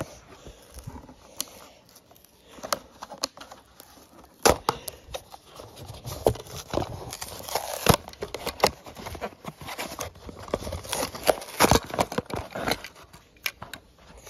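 Clear plastic blister pack crackling and its cardboard backing card being pulled apart as a diecast toy car is prised out of its retail packaging: irregular crinkles and clicks with several sharper snaps.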